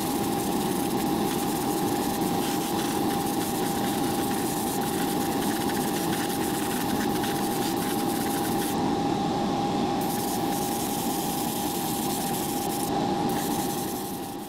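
Airbrush spraying, a steady hiss of air over the even hum of a motor that carries a steady whining tone. The top of the hiss thins briefly about nine seconds in and again near thirteen seconds.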